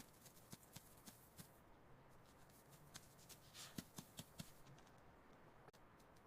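Faint scattered small clicks and brief rustles over low background hiss, irregular and without rhythm.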